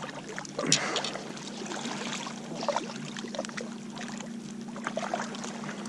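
Shallow water lapping and trickling against a rocky shoreline, with scattered small clicks and scrapes and one sharper knock a little under a second in.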